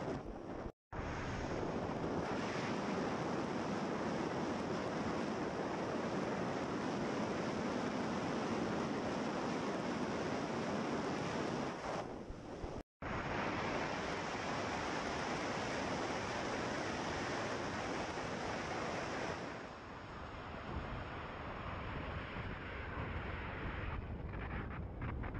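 Wind rushing over the microphone of a camera on a moving motorcycle: a steady rush of noise that covers any engine sound. It drops out for an instant twice, and after about twenty seconds turns a little quieter, with a thin high whine over it.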